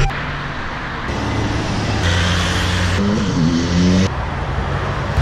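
Road traffic: cars driving past on a street, the noise changing abruptly about every second.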